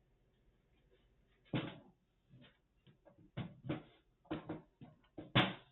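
Irregular hard knocks and clunks of a computer case and its parts being handled and set about on a bench, about a dozen short impacts with the loudest near the end.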